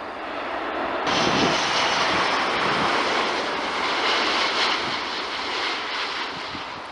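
Four-engined Airbus A380 jet passing close on landing approach: a broad engine roar that jumps sharply louder about a second in, holds for several seconds, then slowly fades.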